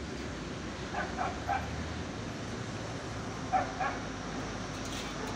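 A dog barking in short yips: three quick barks about a second in and two more past the middle, over a steady low rumble.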